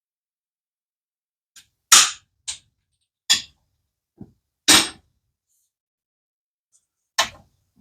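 About seven sharp knocks and snaps at irregular intervals, with silence between them; the two loudest come about two seconds in and just before five seconds.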